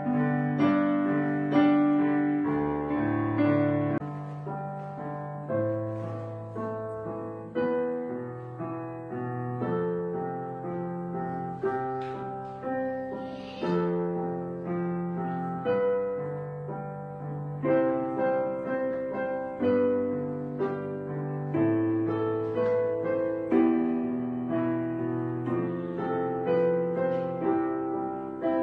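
Background piano music: a slow melody of notes that fade after each strike, over low bass notes.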